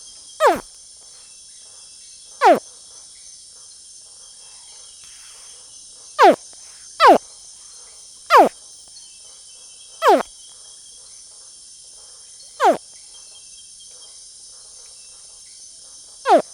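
A small, 50 cm caiman screaming close up: eight short calls at uneven intervals, each sliding sharply down in pitch. A steady high chorus of night insects runs beneath.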